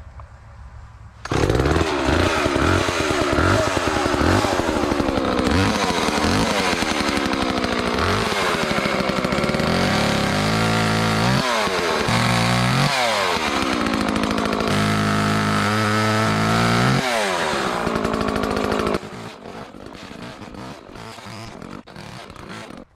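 Homelite Super 2 two-stroke chainsaw cutting tree branches, its engine pitch rising and falling over and over as the chain bites into the wood and runs free again. It starts suddenly about a second in and drops to a much quieter sound for the last few seconds.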